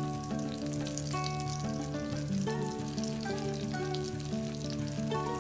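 Battered banana flower strips deep-frying in hot oil in a wok, a steady sizzle with fine crackling, under background music of held notes.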